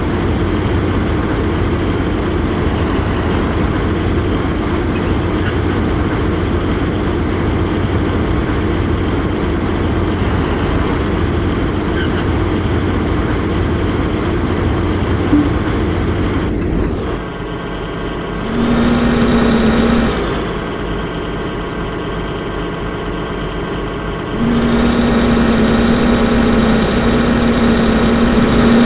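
Excavator engine running steadily. About 17 s in the sound changes abruptly. The engine then runs harder with a steady hum, eases briefly around 20 s, and rises again about 24 s in.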